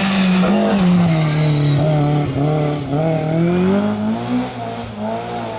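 Rally car engine held at high revs, its pitch sagging and then climbing again about four seconds in, with tyre noise underneath.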